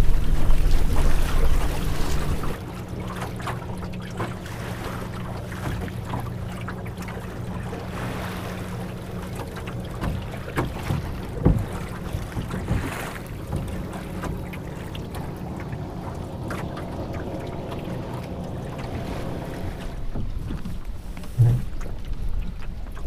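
Wind buffeting the microphone and water rushing and slapping against the hull of a small Melonseed sailing skiff under way. The wind is loudest for the first couple of seconds, then settles to a steadier wash of water with a few sharper splashes and a faint low hum underneath.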